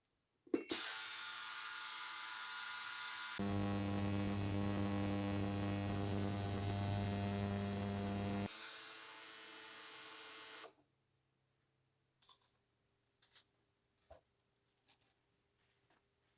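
Small electric rotary polishing tool running at a steady whine. It starts with a click, gets louder about three seconds in, eases off near nine seconds and stops near eleven seconds. A few light clicks follow.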